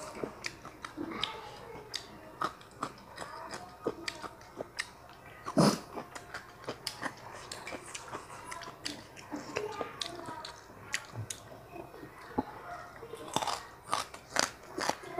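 Close-miked chewing and biting of food, with many short crunchy clicks and smacks; one louder knock comes about five and a half seconds in, and a quick run of clicks near the end.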